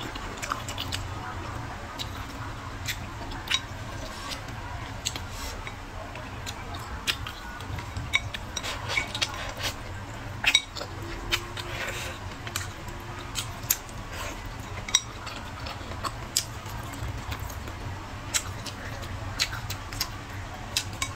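Close-miked eating: chewing and mouth smacks, with irregular sharp clicks of wooden chopsticks against a ceramic bowl.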